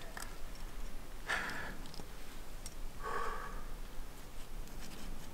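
A rock climber breathing hard while climbing a crack, with two loud, breathy exhales about two seconds apart.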